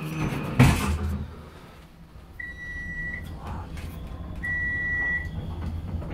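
Elevator beeping: a steady high-pitched beep lasting under a second, sounding twice about two seconds apart, over a low steady hum. A thump about half a second in.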